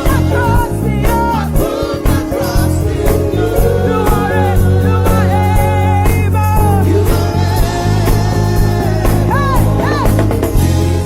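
Live gospel praise music: a band with drum kit, bass and guitar playing under singing voices, with a steady beat.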